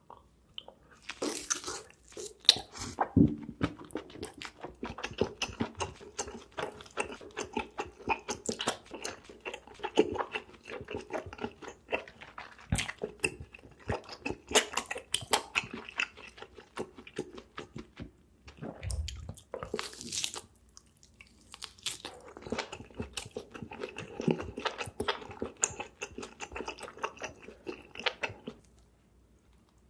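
A person chewing and biting food close to the microphone, with dense, irregular wet clicks and crunches, as in an eating show. The chewing pauses briefly a little past halfway, where a low thump is heard.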